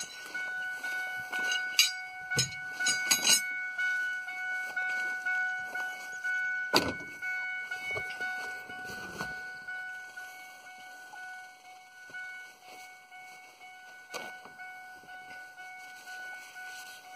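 Scattered knocks and clunks of hands-on work on the machine, the sharpest about seven seconds in, over a steady high-pitched whine.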